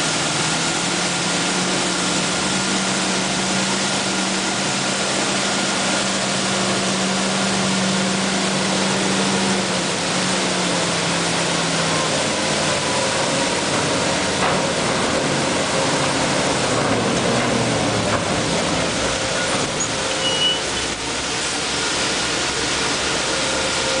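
Loaded GMC grain truck's engine running as it pulls onto the scale, its pitch falling and settling about halfway through as the truck slows. A steady, loud rushing noise runs beneath it throughout.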